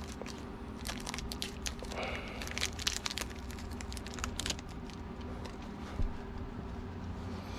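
Packaging being handled and opened, rustling and crinkling with small clicks and crackles over the first four or five seconds, over a steady low hum; a single thump about six seconds in.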